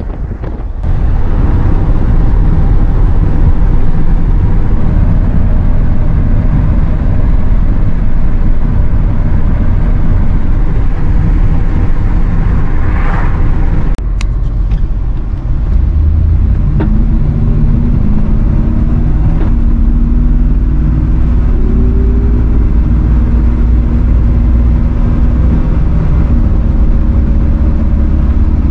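1973 GMC C2500 pickup driving on the road, heard from inside the cab: a loud, steady low rumble of engine and road noise. A few sharp clicks come about halfway through, and in the second half the engine note climbs slowly in pitch.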